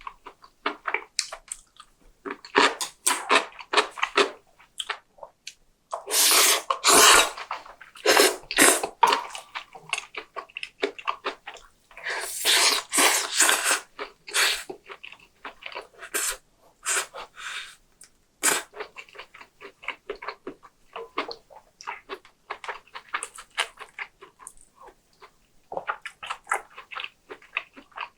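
Close-miked eating sounds: a person chewing with quick wet clicks throughout, and two longer, louder slurps about six and twelve seconds in.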